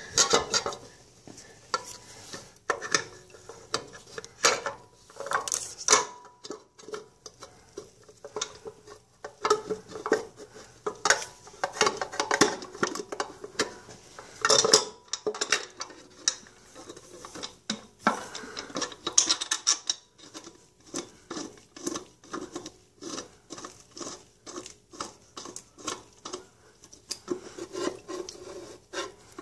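Irregular metallic clinks, knocks and scrapes of the Ford 3000 tractor's power steering reservoir housing being worked by hand onto the pump over the filter.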